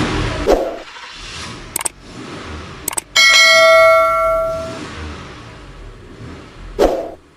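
A single loud bell-like metallic ring about three seconds in, dying away over about a second and a half, with a few sharp clicks around it. A rushing noise fades out in the first half second.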